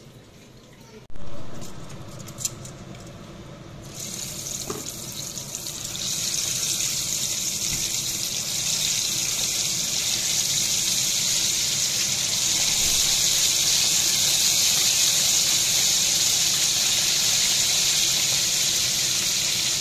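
Hot oil sizzling in a wok over a gas flame, with sliced onion frying in it: a steady hiss that gets louder about four seconds in and again at six. A sudden loud sound about a second in.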